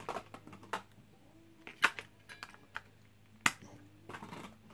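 Small plastic clicks and knocks as AA batteries are pressed into the battery compartment of an Eton Zoneguard weather radio. There are a few sharp snaps, the loudest about two seconds in and again about three and a half seconds in.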